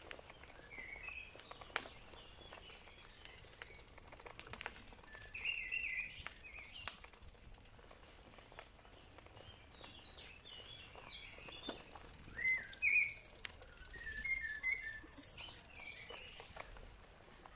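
Several small songbirds singing and chirping in woodland: short, broken phrases of high notes come and go, the loudest a little past the middle.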